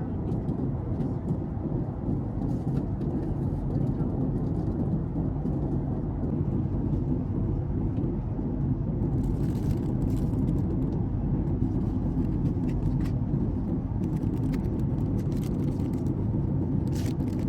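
Steady low rumble of a Boeing 737 MAX 8's engines and airflow heard from inside the passenger cabin. A couple of faint brief hisses come through, one around the middle and one near the end.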